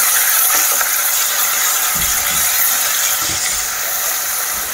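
Garlic paste and grated ginger sizzling steadily in hot refined oil, with a few low knocks of a spatula working the pan.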